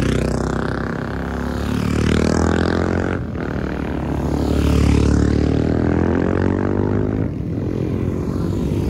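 Several supermoto motorcycles passing through a tight corner one after another, their engines running hard, the pitch dropping and rising as each rider rolls off into the turn and accelerates out.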